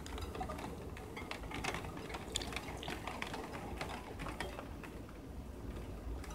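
Rain tapping on a window pane: a scatter of small irregular ticks over a low steady rumble.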